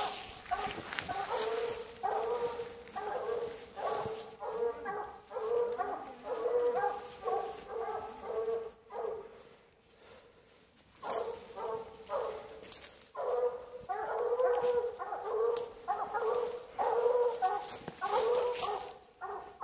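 Coonhounds barking over and over at a tree, the steady tree barking that tells the hunters a raccoon is treed. The barking stops for about two seconds near the middle, then starts again.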